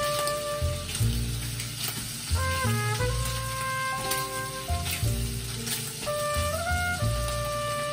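Food sizzling in a frying pan while being stirred with chopsticks, with small crackles, under background music of held notes and a pulsing bass line.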